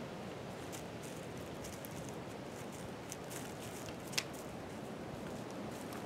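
Steady wind rumble, with scattered light crunches and ticks as a fox steps about in wet snow and noses at a toy; one sharper click about four seconds in.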